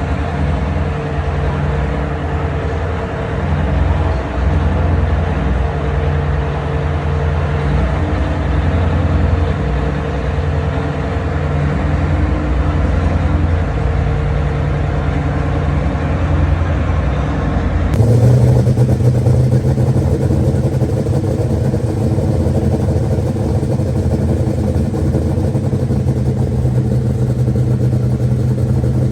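Competition pulling vehicles' engines running hard at high, steady revs. About 18 seconds in the sound cuts to a different run with a deeper, steady engine note.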